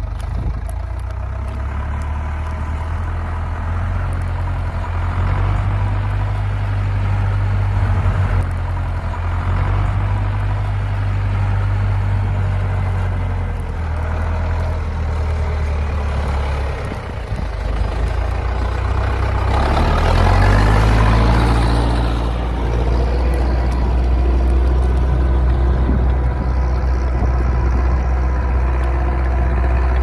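Zetor 6211 tractor's diesel engine running steadily under load while pulling a plough, its note shifting and swelling louder a little past the middle.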